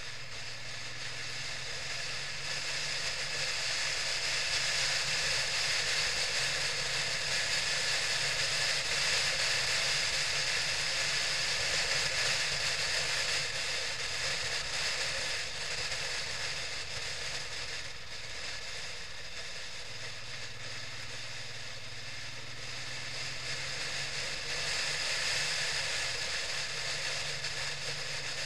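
Onboard sound of a motorcycle on the move, picked up by a camera mounted on the bike: a steady engine drone under a constant hiss of wind and road noise. The engine note eases off a little past halfway, then picks up again.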